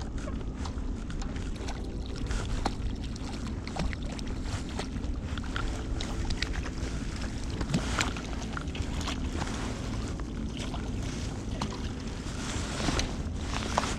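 Steady wind rumble on the microphone over sea water, with scattered light clicks and taps.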